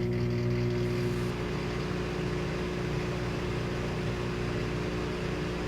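Microwave oven running: a steady electrical hum with fan noise, switched on just after keypad beeps.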